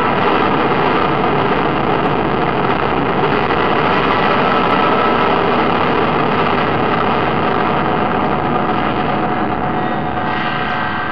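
Electric guitar fed through delay, reverb and looper pedals and a Korg Kaoss Pad, producing a loud, steady drone of distorted noise with no clear notes. It fades slightly near the end.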